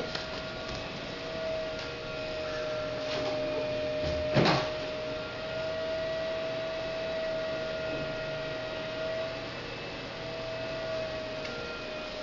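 A steady, even hum of one pitch, with fainter higher tones over it, and one sharp knock about four and a half seconds in.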